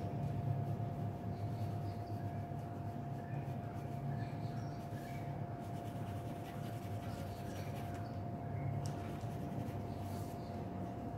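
Graphite pencil shading on paper, faint scratchy strokes, over a steady low hum with a constant thin whine.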